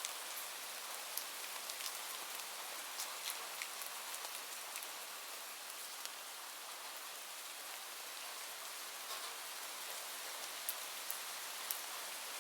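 Steady rain falling, an even hiss dotted with the sharp ticks of single close drops striking a surface.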